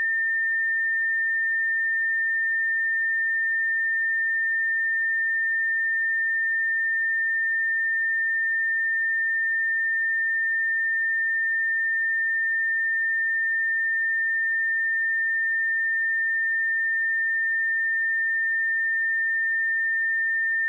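Pure 1806 Hz sine-wave test tone, one steady high-pitched pitch held at a constant level without a break.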